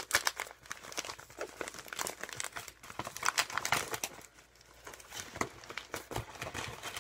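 Red plastic bubble mailer being torn open and handled, with irregular crinkling and crackling of the plastic and a brief quieter pause a little past halfway.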